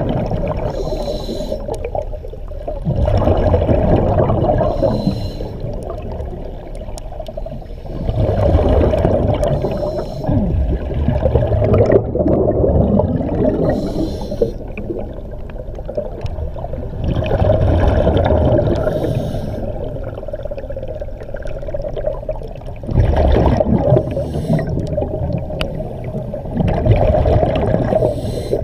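Scuba diver breathing through a regulator underwater: a hiss of inhaling, then a rush of bubbling exhaled air, repeating about every four to five seconds.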